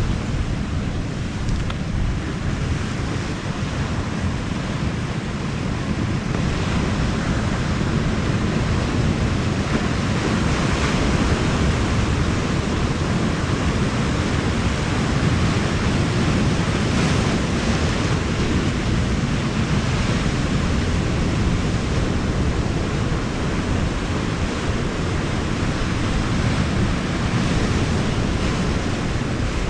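Sea surf washing against a rocky shore, with wind buffeting the microphone. It is a steady, dense rush of noise, heaviest in the low end, with no distinct events.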